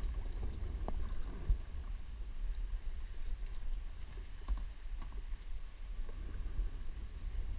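Kayak paddle strokes dipping and splashing in calm lake water, over a steady low rumble, with a few short light knocks, the sharpest about a second and a half in.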